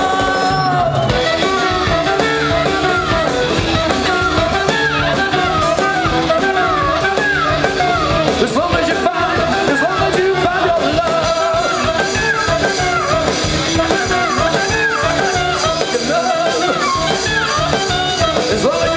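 A live band playing an instrumental passage, a lead line sliding up and down over a steady beat.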